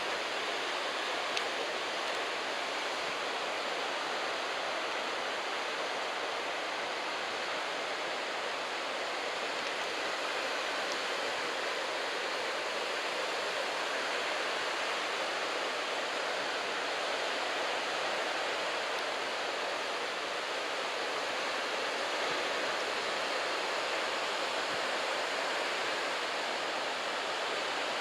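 Ocean surf from a typhoon swell breaking along the beach: a steady wash of noise, with no single crash standing out.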